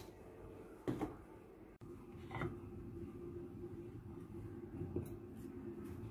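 A ceramic plate handled on a kitchen counter: a few light knocks, the clearest about a second in, over a faint steady hum.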